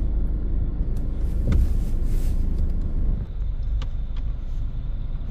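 Car heard from inside the cabin: a steady low rumble with a few light clicks.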